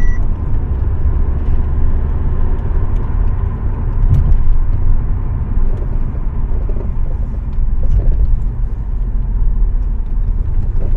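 Audi A4 driving at about 50 km/h with a steady low road rumble, its suspension squeaking and creaking as it goes over a long bump. The mechanic puts the squeak down to worn, cracked rubber bushings in the straight and curved control arms, not the ball joints.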